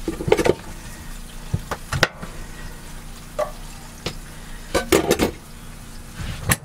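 Kitchen handling sounds: a few sharp knocks and clacks of a knife and a stick of butter on a plastic cutting board as a pat is cut off and put into a frying pan, over a low steady hum.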